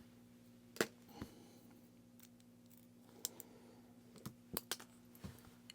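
Sharp little clicks and taps of small metal watch parts and tools, spring bars being handled and fitted into a resin watch band, several separate clicks with a cluster near the end, over a faint steady hum.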